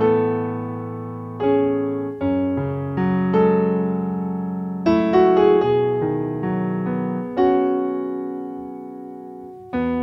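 Kawai digital piano playing a slow, gentle piece: chords and melody notes struck every second or so, each left to ring and fade before the next. Near the end the sound dies down before a fresh chord comes in.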